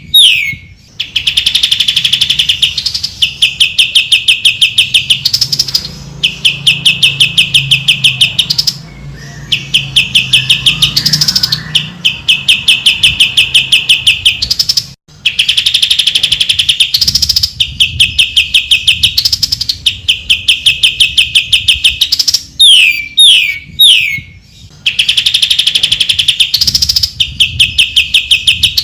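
Cucak ijo (leafbird) singing loud, rapid trilled phrases, each a second or two long, broken by quick downward-sliding notes. The song repeats over and over, with brief pauses about nine and fifteen seconds in.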